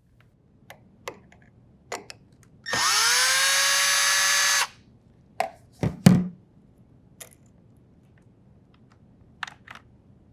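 Cordless drill driver spinning up with a quickly rising whine and then running steadily for about two seconds, backing out a fastener from the refrigerator's top hinge bracket. Light clicks and a sharp knock about six seconds in come from the fasteners and tool being handled.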